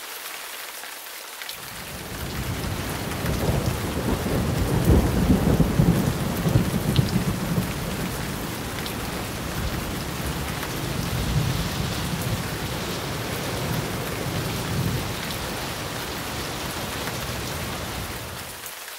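Steady heavy rain with a deep rumble of thunder that builds a second or two in and is strongest around five seconds in, then rolls on under the rain.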